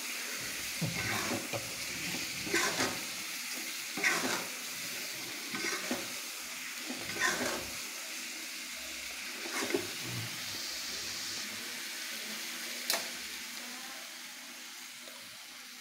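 Balado chili sauce sizzling in a metal wok while a metal spatula stirs and scrapes boiled eggs through it, in repeated strokes every second or two. There is one sharp click about thirteen seconds in.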